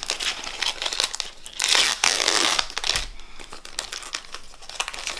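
Foil Pokémon booster pack wrapper crinkling as it is handled and torn open, with a louder rip about two seconds in.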